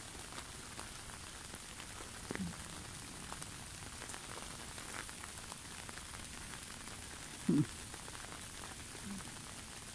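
Steady rain falling on a lake's surface: an even hiss with many scattered tick-like drops. A brief low-pitched sound stands out about three quarters of the way through, with a fainter one earlier.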